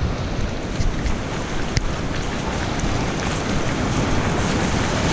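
Shallow surf washing in over the sand, with wind buffeting the microphone; the wash grows gradually louder.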